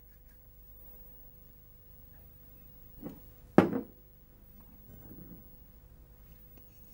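Quiet room tone with a faint steady hum, broken about three seconds in by two short handling knocks, the second louder, as a roll of glazier's putty is fed into the neck of a glass bottle.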